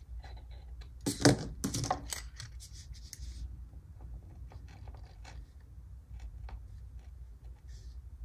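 Paper planner supplies handled on a desk: a burst of crinkly rustling and sharp clicks about a second in, then scattered light taps and ticks.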